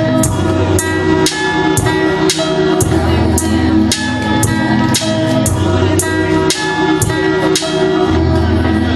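Electronic beat played live on a pad controller and laptop by finger drumming. Sharp drum hits land about twice a second over held bass notes and sustained chords.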